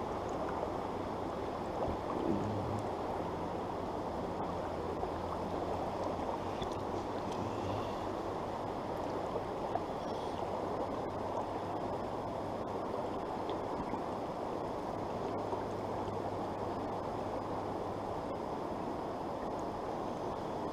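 Steady rushing of a shallow, rocky trout stream flowing around the wader.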